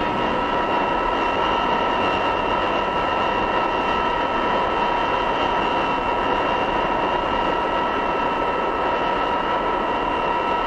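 Boeing 707's turbojet engines running with a steady high whine over an even rushing roar, ending abruptly.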